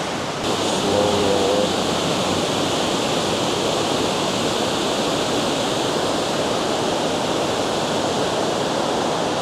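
Water pouring over a spillway: a steady, even rushing noise that gets a little louder about half a second in.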